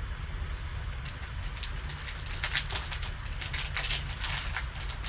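Football card pack wrappers crinkling and crackling as they are handled, in irregular clusters that thicken from about a second in, over a steady low hum.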